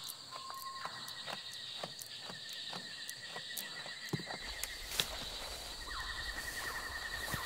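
Rainforest ambience: insects trilling steadily at two high pitches, with many scattered sharp clicks and a brief steady whistle near the start. A low rumble comes in just past halfway.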